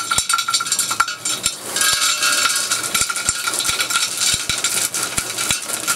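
Light, pumice-like pot-bottom stones poured from a plastic bag into a large unglazed terracotta pot: a continuous clattering rattle of small stones hitting the clay and each other. It grows denser about two seconds in as the pour speeds up.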